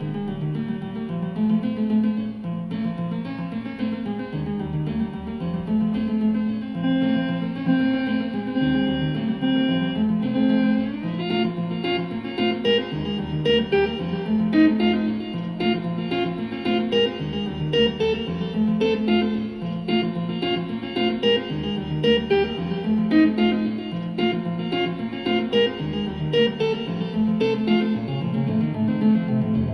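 Instrumental background music: a melody over a bass line that changes note about every second, growing busier about eleven seconds in.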